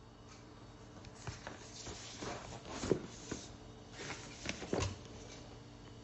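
Cardboard product box being turned over and handled: a string of scrapes and taps, loudest about three seconds in and again near five seconds.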